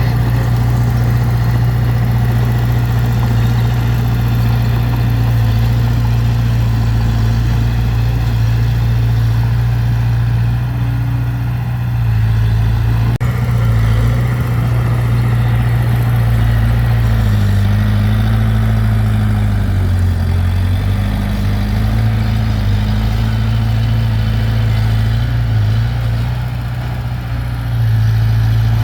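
Heavy diesel engine of earthmoving equipment running steadily, its note sagging and recovering a couple of times past the middle.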